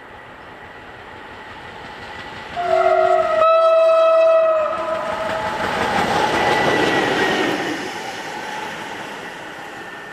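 SM42 diesel locomotive sounding its horn in a blast of about two seconds, the note changing partway through. The locomotive then passes close by, its engine and wheels swelling to a peak and fading away.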